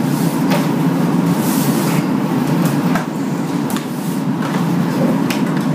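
Cardboard packaging being handled and opened: a few short scrapes and rustles of the carton and its flaps, over a steady low background hum.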